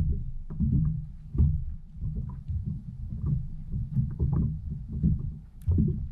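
Water sloshing and slapping against a kayak hull right by the microphone, in uneven low thumps. Scattered sharp clicks run through it.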